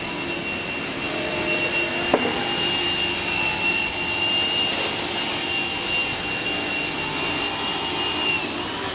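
Steady high-pitched motor whine over a hiss, from an electric machine running without a break. Its pitch dips briefly near the end, and a single knock sounds about two seconds in.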